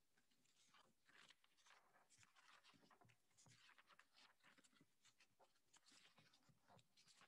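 Faint, irregular rustling and shuffling of paper sheets as a stack of bid documents is leafed through and handled on a table.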